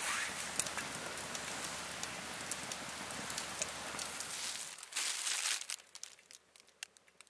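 Wood fire crackling, a dense run of pops and hiss that stops abruptly about four and a half seconds in. It is followed by a short crinkle of a plastic food pack being handled and a few faint scattered clicks.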